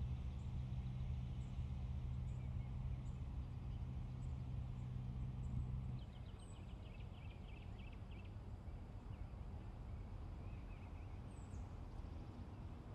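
Birds chirping and trilling outdoors, with short high chirps throughout and a fast trill just after the middle. Under them a low steady hum, like a running motor, cuts off about halfway through.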